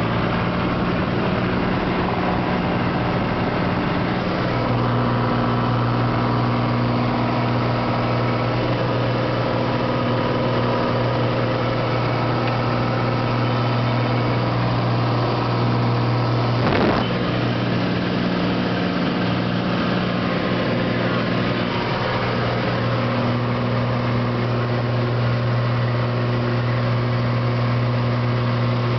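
Cessna 182T's six-cylinder piston engine and propeller running at takeoff power, heard inside the cabin: a steady, loud drone that rises slightly in pitch about four seconds in. One brief knock comes about two-thirds of the way through.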